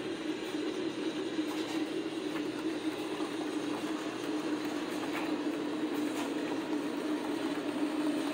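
Model trains running on a layout: a steady hum from the locomotive motors and wheels rolling on the track, with a few faint clicks.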